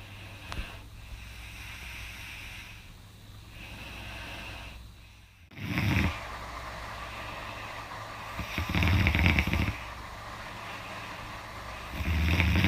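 A young woman snoring in deep sleep: three loud snores about three seconds apart, the first short and the next two longer and louder.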